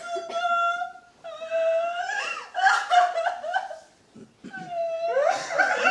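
A woman's exaggerated stage crying: several drawn-out, high-pitched wailing sobs with short breaks between them.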